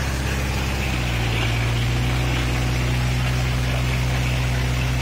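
Kubota MU4501 tractor's four-cylinder diesel engine running steadily while driving, its note shifting slightly about a second in, over a steady hiss of the wheels splashing through mud and water.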